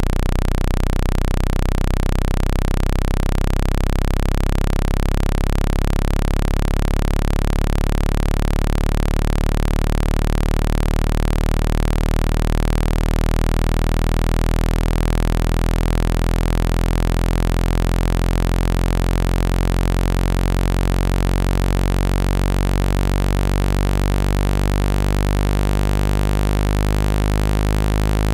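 A deep, steady synthesized tone with many overtones that holds without a break. It is a phone speaker-cleaning sound, played to vibrate the speaker and shake out water and dust.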